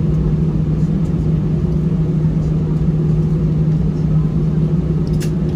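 Steady cabin drone inside an Airbus A320-214, its CFM56 engines and air conditioning giving a low, even hum with no rise in power. A single short click near the end.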